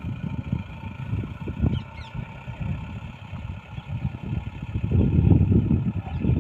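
A vehicle engine running, heard through low gusts of wind buffeting the microphone that swell about five seconds in.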